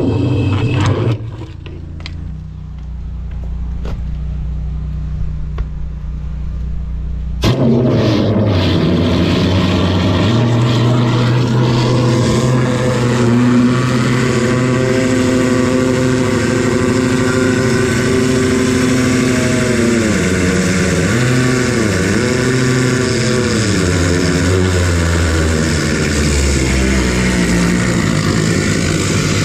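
High-pressure drain jetter running under load, its engine and pump note steady over the hiss of the water jet blasting a fat-choked gully line. The sound is muffled at first and comes in full and loud about seven seconds in; later the engine note dips and recovers several times.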